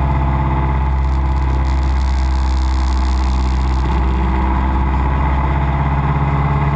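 Cessna 172's piston engine and propeller droning steadily, heard from inside the cockpit.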